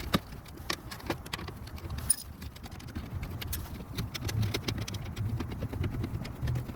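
Ratchet with a 7mm socket clicking in quick runs as the screws of a plastic fender well liner are backed out, with a couple of sharper clicks.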